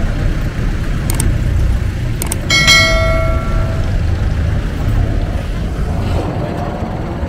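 Jeepney engine and road noise as a steady low rumble heard from inside the passenger cabin, with a few light clicks and rattles. About two and a half seconds in, one sharp metallic strike rings out with a clear pitch and fades over a second or so.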